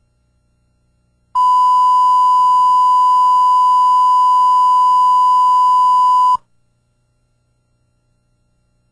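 Videotape line-up test tone accompanying SMPTE colour bars: a single steady beep that starts about a second and a half in and cuts off about five seconds later.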